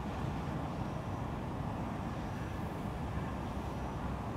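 Steady low rumble of distant city traffic, with a few faint, short high tones above it.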